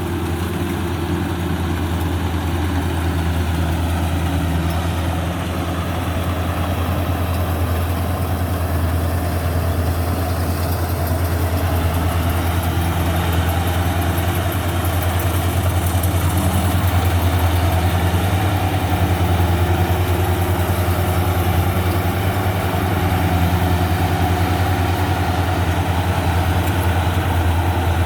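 Rice combine harvester's diesel engine running steadily with a deep, even drone, a little louder from about halfway through.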